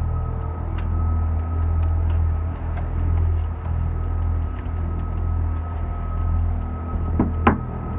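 A fishing boat's engine runs steadily with a low drone and a faint steady whine, with scattered light clicks over it. Two sharp knocks come near the end.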